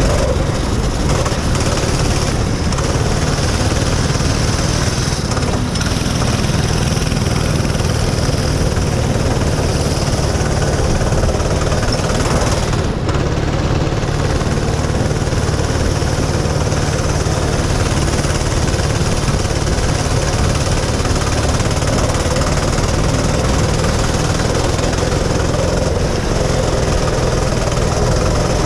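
Go-kart engine running steadily at racing speed, heard from a camera on the driver's helmet.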